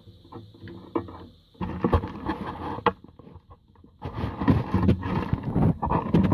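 Rustling, scraping and clattering of handling on a cluttered electronics workbench, in two irregular stretches: one about one and a half seconds in, and a longer one from about four seconds in.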